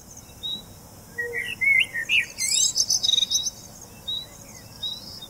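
Wild birds chirping and singing: short high chirps repeated every second or so, with a warbling phrase and a quick high trill about two to three seconds in, over a faint outdoor hiss.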